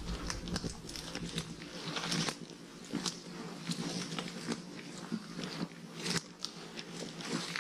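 Irregular crunching steps on a rocky trail, from hikers and pack goats walking in a line.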